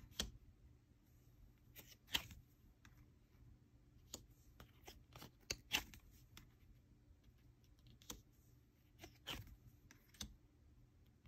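Foil trading cards being handled and slid one behind another in the hands: faint, scattered clicks and swishes, about ten in all, irregularly spaced.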